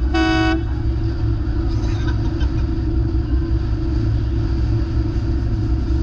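A vehicle horn gives a short honk right at the start, the second of two quick toots, over the steady low rumble of a running vehicle.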